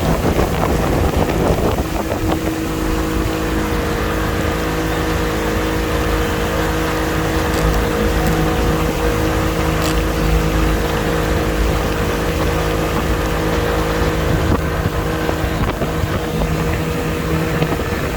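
Motorboat engine running at a steady speed with an even, unchanging hum, mixed with wind noise on the microphone.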